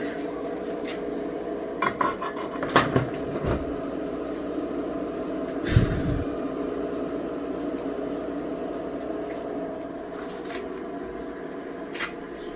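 Metal clinks and knocks, a few sharp strikes scattered over several seconds, over a steady hum.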